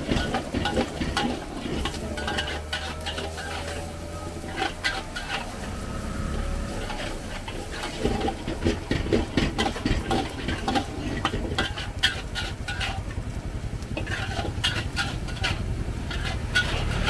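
Metal spatulas scraping and clanking against steel woks as fried rice and noodles are stirred over gas burners, in quick clusters of strokes. Beneath them is a steady low rumble from the burners.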